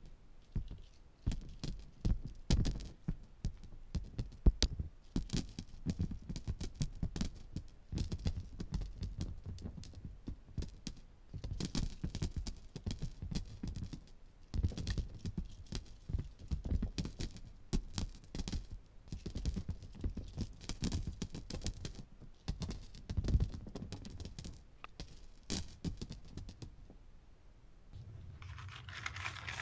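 Many coins, mostly pennies, dropping in irregular showers onto a woven upholstered cushion, clinking against the coins already piled there. The clinking stops near the end and a steady hum takes over.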